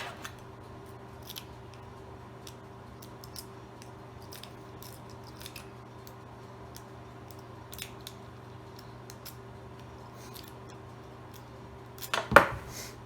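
Homemade metal-strapping lock-pick rake working in an American Lock 1100 padlock's keyway: scattered light metallic clicks and scrapes as the pins are raked, with a louder clatter about twelve seconds in.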